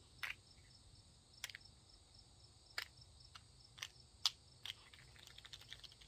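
Faint steady chirping of insects, with a series of short sharp clicks that come faster near the end.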